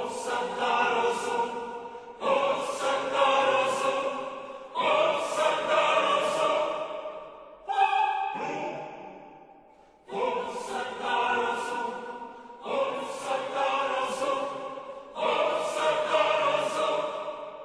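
Background music with choir-like singing, in phrases that start sharply about every two and a half seconds and fade away, with a longer fade about eight seconds in before the phrases resume.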